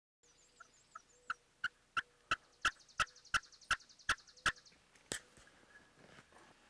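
Wild turkey yelping: a run of about a dozen evenly spaced notes, roughly three a second, building up then fading, with one more loud note a little later. A high songbird trill sounds briefly near the start, and a buzzy high trill runs through the middle.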